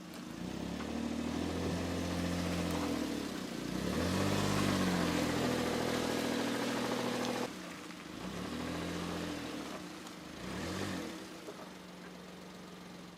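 Suzuki Super Carry kei truck's small three-cylinder engine driving, its pitch falling and rising several times, then settling to a steadier, quieter note near the end.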